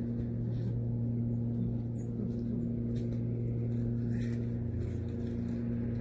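A steady low mechanical hum with an even pitch, like a motor running without change.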